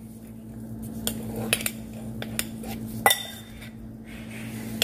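Metal spoon clinking and scraping against a small bowl as mashed plantain is pressed into it. There are several light clinks, and the loudest, about three seconds in, rings briefly.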